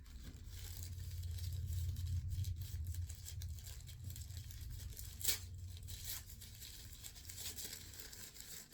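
Packaging rustling and tearing as items are unwrapped by hand, full of small crackles, with one sharp click about five seconds in.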